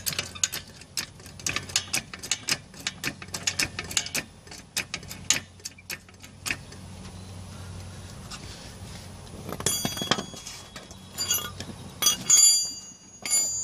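Floor jack being pumped under the front brake disc, each handle stroke giving a sharp click, about three or four a second, for roughly six seconds. After a pause come metallic clanks with a ringing tone, the loudest near the end.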